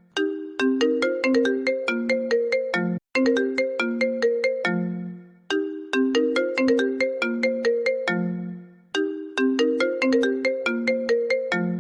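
iPhone ringtone playing: a short melody of quick, bright notes that ends on a lower, longer note, looped about every three seconds with a brief gap between repeats.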